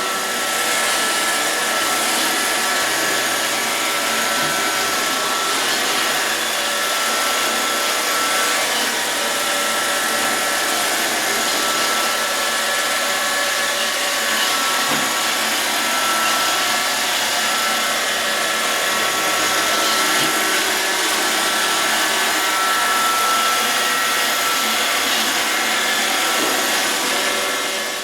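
Robot vacuum cleaner running steadily: an even whir with a faint high-pitched hum.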